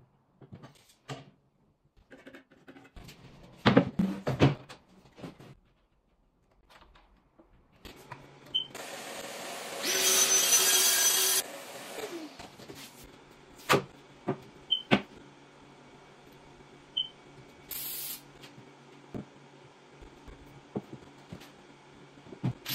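Festool plunge-cut track saw cutting a board along its guide rail for about a second and a half, then spinning down with a falling whine, while the dust extractor on its hose runs on with a steady hum. Before the cut there are several knocks as boards and tools are handled.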